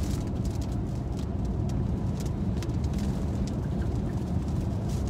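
Steady road and engine noise heard inside a moving car's cabin, with raindrops striking the windshield as irregular light ticks.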